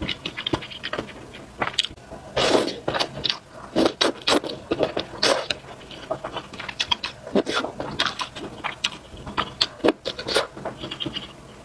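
Close-miked slurping and chewing of wide potato noodles in spicy soup: many wet mouth smacks and clicks, with a longer slurp about two and a half seconds in.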